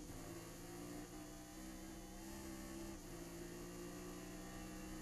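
Chevrolet Nova race car's V8 engine running hard under acceleration, heard from inside the cockpit as a steady humming drone, with a brief break in the note about three seconds in.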